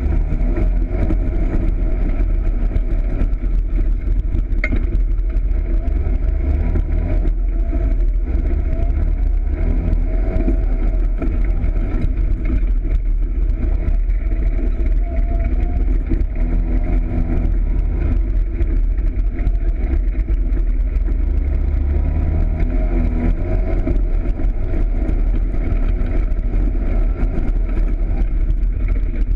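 Polaris RZR side-by-side's engine running under way on a dirt track, its pitch rising and falling as the throttle is worked, over a steady low rumble.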